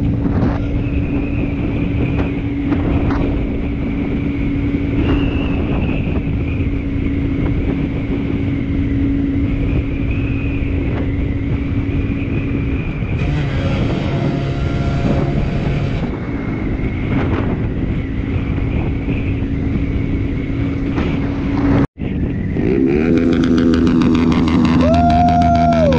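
Motorcycle engine running steadily at cruising speed with wind rushing past. About 22 seconds in, after a brief dropout, the engine is louder and its pitch rises and falls as it revs.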